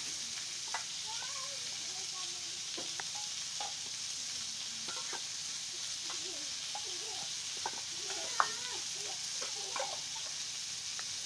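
Sliced pointed gourd (potol) frying in oil in a steel wok, a steady sizzling hiss. A few light clicks come on top, the sharpest about eight seconds in.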